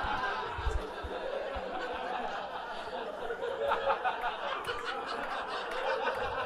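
An audience laughing after a joke: a steady wash of many people's laughter, with a few scattered claps.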